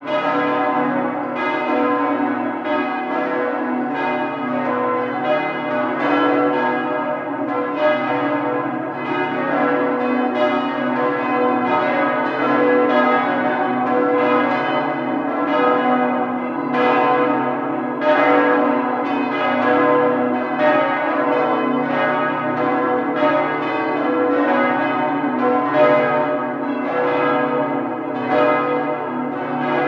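Several bells ringing continuously, strike after strike in a steady peal, each note ringing on into the next.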